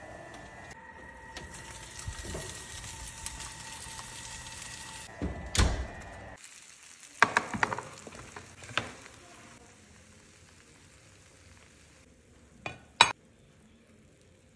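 Hot pan of oven-baked salmon sizzling with a steady hiss, then a heavy clunk a little after five seconds in. After that, scattered metal clinks and taps as tongs lift the fillets, with two sharp clacks near the end.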